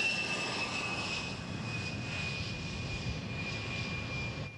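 A-10 Warthog's twin turbofan engines in flight: a steady high-pitched whine, slowly falling in pitch, over a rushing engine rumble. The sound drops away sharply near the end.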